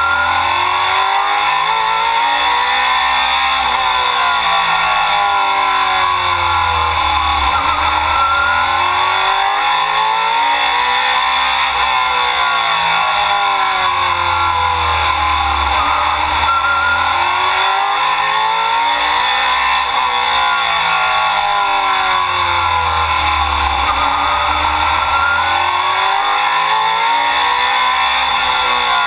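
In-car sound of a USAR Pro Cup Ford stock car's V8 engine at racing speed on a short oval. Its pitch rises along each straight and falls as the driver lifts for the turns, in a repeating cycle about every eight seconds.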